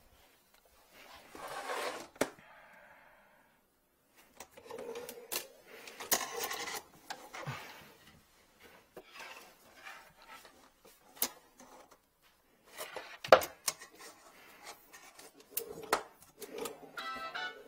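Hands handling a drain inspection camera kit: rubbing and scraping with several sharp clicks and knocks as the aluminium case is opened and the yellow push cable is pulled out. Near the end, a short run of steady musical tones begins.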